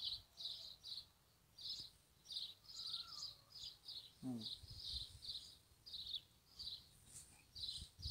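Faint outdoor chirping: short high chirps repeating steadily, about two or three a second, with a brief falling call about four seconds in.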